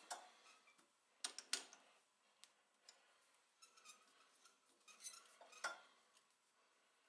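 Faint metal clicks and clinks from a chuck key working the jaw screws of a four-jaw lathe chuck, which is being turned by hand. There are two sharp clinks about a second in and a few more near five seconds.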